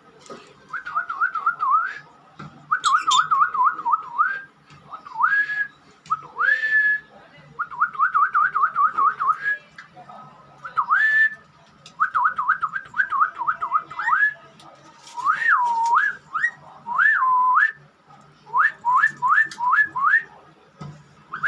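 Clear whistling in a run of phrases: fast wavering trills alternate with single rising slurs, each phrase a second or two long with short pauses between.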